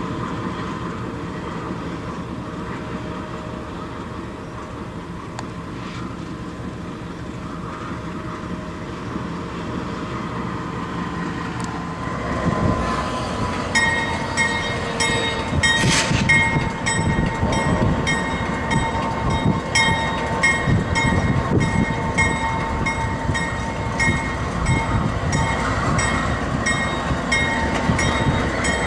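Steady low hum for about 12 seconds. Then a CSX AC4400CW diesel locomotive runs as the turntable turns it: a pulsing low rumble, with a high ringing that repeats about twice a second.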